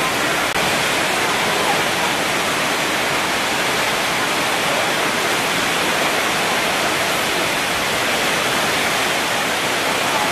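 Steady rain on a corrugated metal market roof: an even, unbroken rushing hiss.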